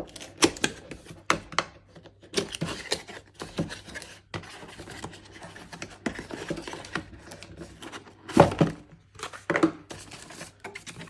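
A camera's retail box being opened and its packaging handled: rustling and crinkling with scattered clicks and knocks, the loudest knocks near the end.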